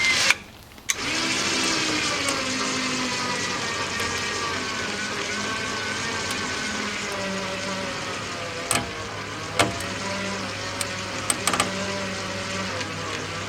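An engine running steadily, its pitch wavering a little, with a few sharp knocks and clicks in the second half.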